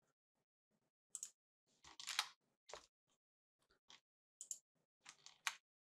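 Faint, scattered clicks of a computer mouse and keyboard, about ten short taps at uneven intervals.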